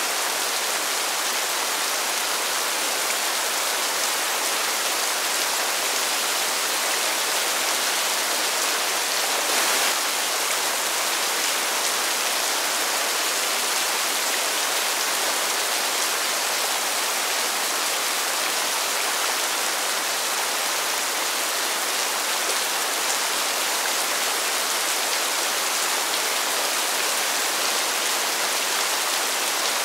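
Steady rain falling on pavement: an even, unbroken hiss of drops, with one slightly louder spatter about ten seconds in.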